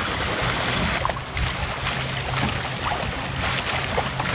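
Water rushing and slapping against the hull of a small wooden sailing dinghy under sail, with wind noise and a steady low hum underneath.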